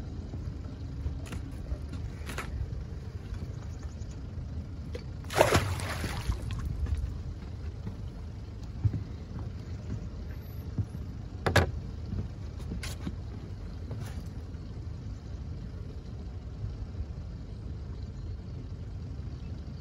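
A large blue catfish splashing back into the river about five seconds in, over a low steady rumble. A few sharp knocks follow a little later.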